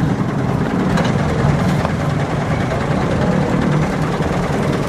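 Mitsubishi Pajero Sport SUV engine running steadily at low revs as it crawls through deep mud.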